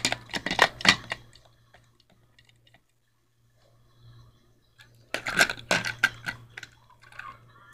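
Plastic toy train engines clattering and knocking together as they are handled and tipped over by hand. The clicks come in two bursts, one lasting about a second at the start and another about five seconds in, over a faint low hum.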